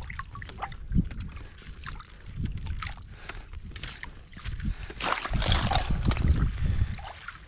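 Water splashing and sloshing as a gloved hand works under the surface of shallow, partly iced water, with scattered small clicks and knocks. It gets louder and busier about five seconds in.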